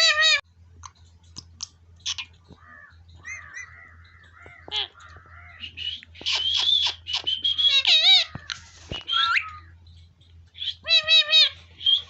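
Indian ringneck parrot (rose-ringed parakeet) calling and chattering: a harsh screech at the start and a quick run of three screeches near the end, with softer chatter and wavering whistle-like notes in between.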